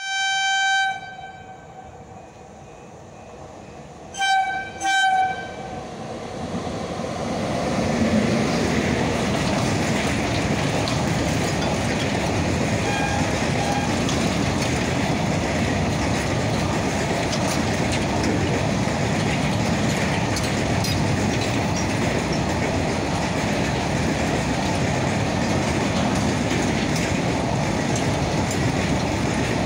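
WAG-9HC electric locomotive horn sounding once, then two short blasts about four seconds in. From about six seconds on, a loud steady rush and wheel clatter builds as the goods train's wagons pass at speed.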